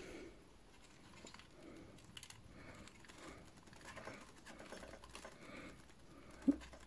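Faint, scattered clicks and taps of plastic action-figure and upgrade-kit parts being handled and pressed together, with a short low sound about six and a half seconds in.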